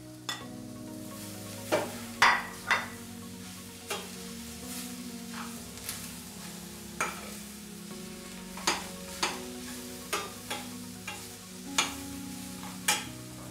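Steel spoon stirring and scraping chopped tomatoes and fried onion masala around a stainless steel pan, with a sharp scrape or clink against the metal about once a second over a steady sizzle of frying.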